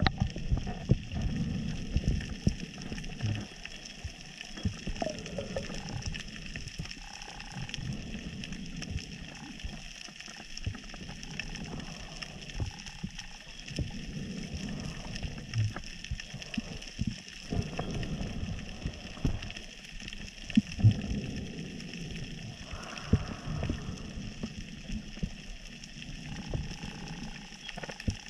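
Underwater ambience during a scuba dive: scattered crackling clicks over an uneven low rumble that swells and fades every few seconds.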